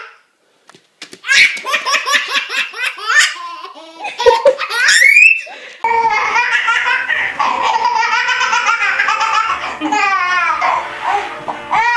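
Babies laughing hard at a dog. A baby's belly laugh comes in quick repeated bursts, then rises to a high squeal. About six seconds in, a second baby's laughter takes over and runs on almost without a break.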